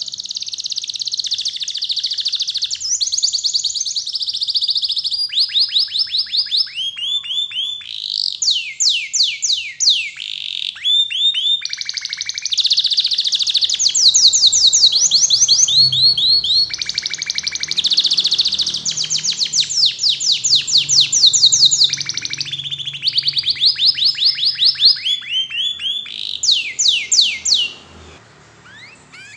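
Domestic canary singing a long continuous song of rapid trills. Each run of quickly repeated high notes gives way to a new one every second or two, and the song stops near the end.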